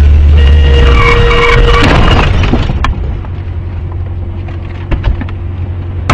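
Vehicle noise picked up by a dashcam microphone: a very loud, low rumble that eases after about two seconds and continues more quietly, with a few sharp knocks near the end.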